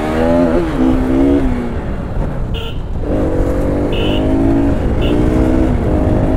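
Bajaj Pulsar RS200's single-cylinder engine pulling through the gears. The revs climb, drop back at a shift about one and a half seconds in, and climb again, over a rush of wind noise.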